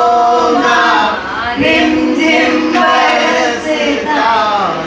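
A Hindi song with male and female voices singing together in long held notes.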